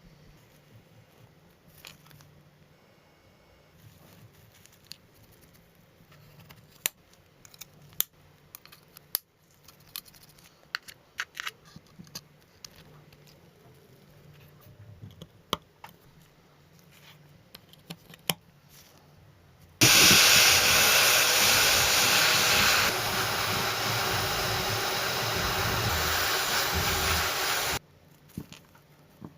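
Scattered light clicks and taps of hand work, then a loud steady hiss from an air or power tool for about eight seconds, dropping slightly partway through before cutting off abruptly.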